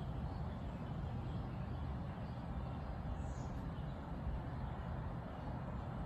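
Outdoor backyard ambience: a steady low background rumble with faint, scattered bird chirps, including one short high chirp about halfway through.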